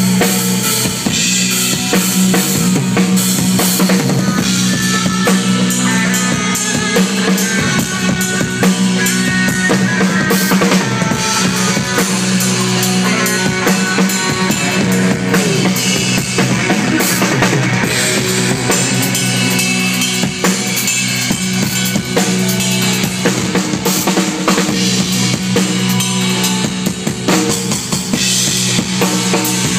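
Live rock band playing loudly, with the drum kit to the fore over bass and guitars.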